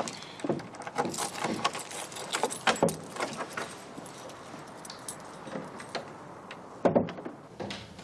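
A bunch of keys jangling and clinking for about three seconds, with lighter rattles after, then a single louder knock about seven seconds in.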